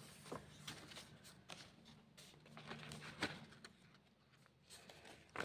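Faint paper rustles and light taps as the pages and card tags of a handmade paper journal are handled and a page is turned.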